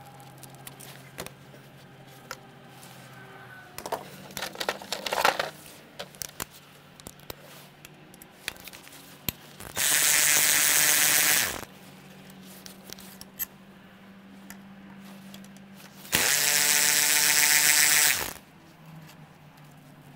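A battery power driver whirring twice, each run about two seconds, about six seconds apart, spinning the thermostat housing bolts out of a Mercedes M120 V12 through a socket on a long extension. Light clicks and knocks of the tools on metal come before the first run.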